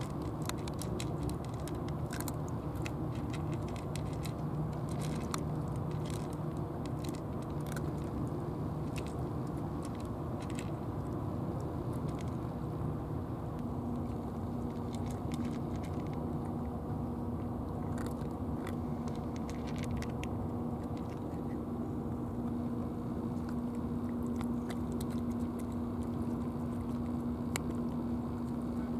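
Cats crunching dry kibble: scattered crisp crunches, thicker in the first half, over a steady low rumble. A steady low hum comes in about halfway.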